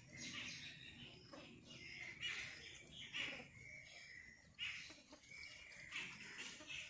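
Short, high-pitched animal chirps repeating about once a second over a faint background.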